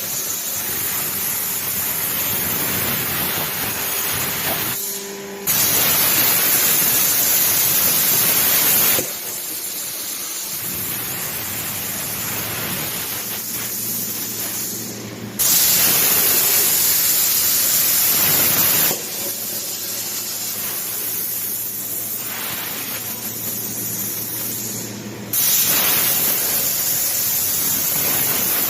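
CNC plasma cutter cutting steel flat bar: a loud, steady hiss of the plasma arc and air that switches on abruptly three times and runs for about three to four seconds each time. Between these stretches there is a quieter hiss with a low hum.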